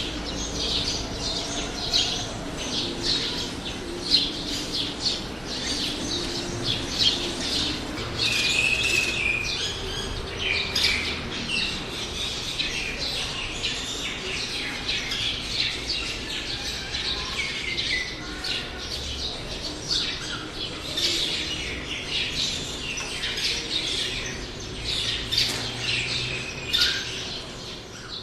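Several kinds of small birds chirping and twittering continuously, sparrows among them, many calls overlapping in quick short notes.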